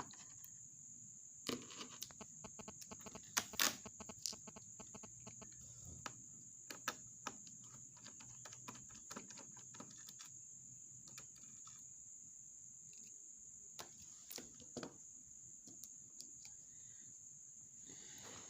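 Scattered small clicks and taps of a screwdriver and small screws being handled on a laptop's plastic case, over a steady high-pitched tone in the background.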